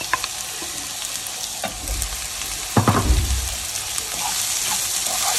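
Chopped onions and garlic frying in hot oil, a steady sizzle, with a spoon stirring and scraping the pan in short clicks and a louder knock nearly three seconds in.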